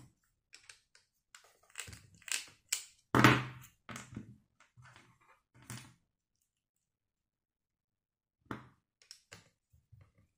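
Small clicks and knocks of hands swapping 3M radial bristle polishing discs on a mandrel and handling a rotary tool handpiece on a wooden bench. There is a louder thunk about three seconds in, then a pause of a couple of seconds before a few last light taps.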